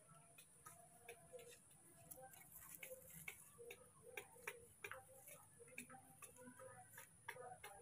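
Near silence, with faint irregular ticks and clicks, several a second, over a faint steady high hiss.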